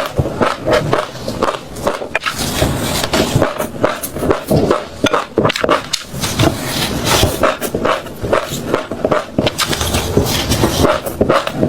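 Crunchy food being chewed close to the microphone: a dense, irregular run of crisp crunches and crackles, several a second.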